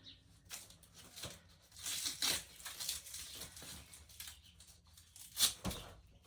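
Irregular tearing and crinkling as a bag is pulled and ripped off, in uneven bursts, loudest about two seconds in and with a sharp rip near the end.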